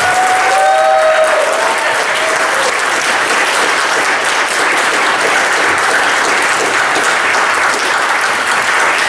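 Congregation applauding steadily after a baptism, with a few voices cheering over it in the first couple of seconds.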